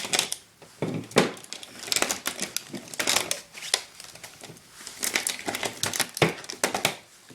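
Copper winding wire being pulled and worked out of a scrap compressor's motor by hand: an irregular run of crackles, snaps and scraping as the wires tear loose.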